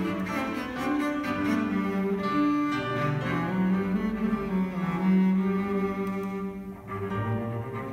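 Solo cello played with the bow in long held notes, with piano accompaniment. The sound dips briefly near the end, between phrases.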